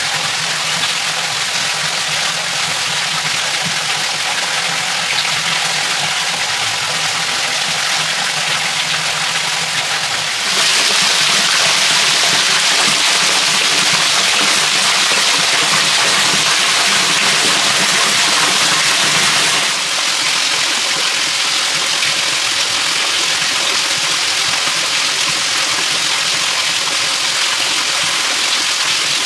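Water running over rocks in a shallow forest stream and falling in a small waterfall: a steady rushing hiss that grows louder at about ten seconds in and drops back at about twenty. A faint steady hum sits underneath.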